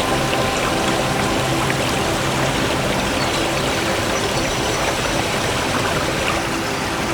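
Steady rush of a creek cascading over small falls, with soft background music faintly underneath.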